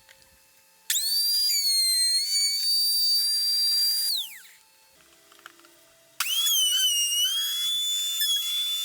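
High-speed motor of a homemade saw spinning up with a sharp rising whine, running at a steady high pitch for about three seconds, then winding down. It starts again about two seconds later for a second run of the same length.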